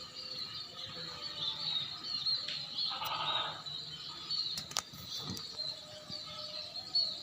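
A swiftlet colony twittering: many high, wavering chirps overlapping continuously. A brief louder, lower call sounds about three seconds in, and there are a couple of sharp clicks near five seconds.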